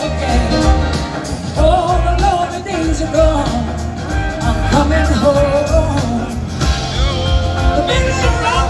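Live blues-rock band playing, heard from the audience: a woman singing over electric guitar, bass guitar and drums.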